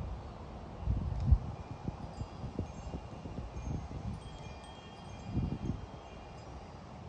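Wind chime ringing with several high overlapping tones, over gusts of wind buffeting the microphone that are strongest about a second in.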